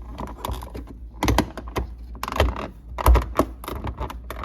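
A series of sharp plastic clicks and knocks as a refrigerator's water dispenser housing is pushed up and snapped into the door, its plastic tabs catching in place.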